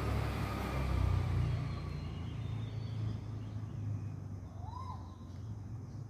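Low rumble of passing road traffic, strongest over the first two seconds, settling into a steady low city hum. One faint, short bird note that rises and falls in pitch comes about five seconds in.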